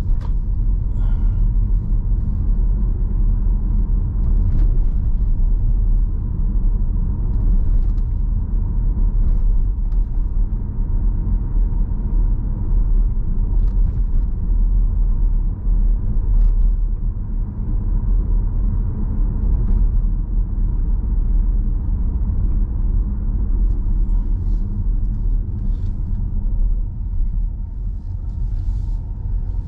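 Steady low rumble of a car's engine and tyres heard from inside the cabin while driving, with a few faint, irregular clicks.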